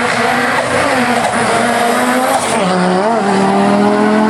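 Race car engine running hard at high revs, its pitch briefly dipping and climbing back about three seconds in.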